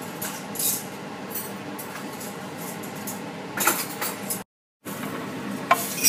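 Metal spatula scraping and clinking against a non-stick frying pan as it works under a pancake to flip it, a few scattered clicks over a steady faint hiss. The sound cuts out completely for a moment about four and a half seconds in.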